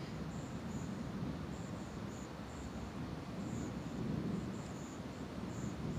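Night insects chirping: short, high chirps at irregular intervals, over a low, steady rushing background.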